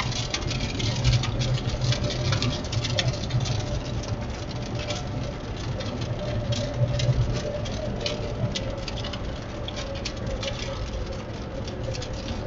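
Raindrops pattering on the windshield and roof of a moving car, heard from inside the cabin, many small irregular ticks over a steady low hum of engine and tyres.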